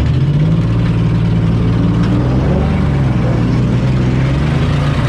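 Demolition derby car's engine running steadily, a low drone with a rough, noisy edge, heard from inside the car.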